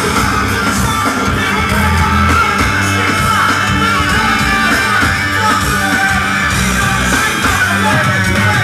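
Rock band playing live: electric guitars, bass and drums, with the vocalist shouting into a microphone over the loud, dense mix.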